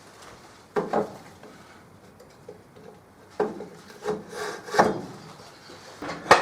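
Metal hand tools knocking and scraping against a wooden tool shelf as they are pushed into and pulled out of its drilled holes. Two knocks come about a second in, then a run of knocks and rubbing, and a sharp knock near the end.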